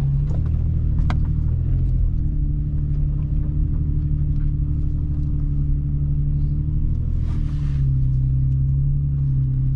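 Toyota FJ Cruiser's 4.0-litre V6 engine pulling slowly in four-wheel drive over rough trail, a steady low drone that shifts in pitch a few times as the throttle changes. A single sharp click about a second in.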